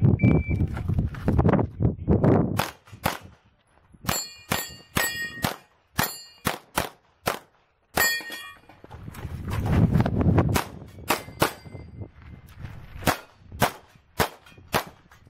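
Rapid strings of pistol shots from an open-division STI pistol. Between about 4 and 8 seconds in, steel targets ring with a short metallic ding after several of the hits.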